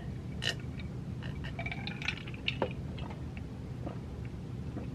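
Steady low hum with scattered faint clicks and taps, a little louder about half a second in and again past two and a half seconds.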